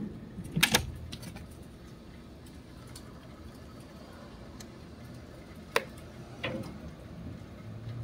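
Gray squirrel's claws tapping and scratching on the window frame: a few sharp clicks, one at the start, a quick cluster about a second in, and two more around six seconds in.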